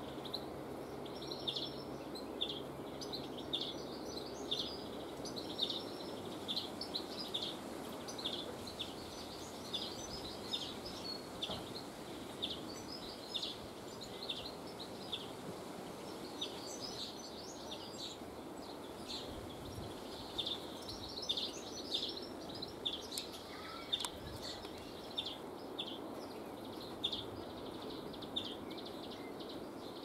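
House sparrows chirping: a continuous string of short, repeated chirps, coming several a second in runs, over a steady low background noise.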